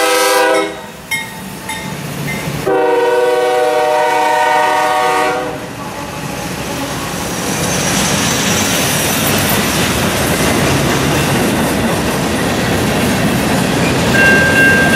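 Freight train locomotive air horn sounding a short blast, then a longer one of about three seconds, as the CSX locomotives pass. It is followed by the steady rumble and clickety-clack of freight cars rolling by. Near the end a railroad crossing bell starts ringing.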